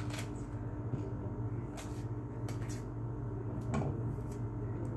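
Metal utensil scraping and tapping in a frying pan of shredded potato and onion, a few short strokes spread through, over a steady low hum.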